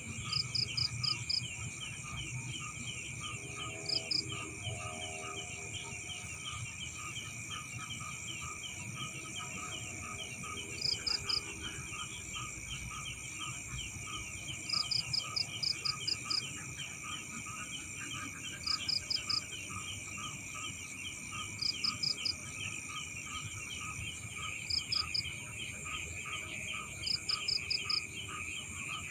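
Night chorus of insects and frogs around rice paddies. Steady high buzzing and a fast, continuous chirping run under a louder call of two to five quick high pulses that comes back every two to four seconds.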